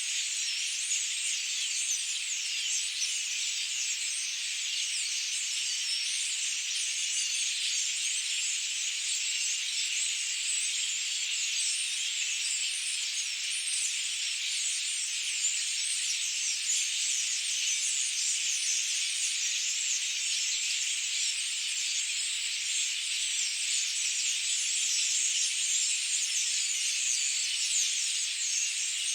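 Dense, steady high-pitched insect chorus, a continuous shimmering buzz with no pauses.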